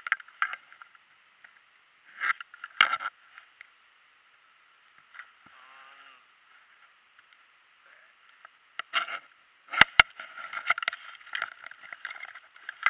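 Scattered knocks and rustling as a caught fish and gear are handled in a plastic kayak cockpit, with a quiet stretch in the middle and a couple of sharp knocks on the hull about ten seconds in.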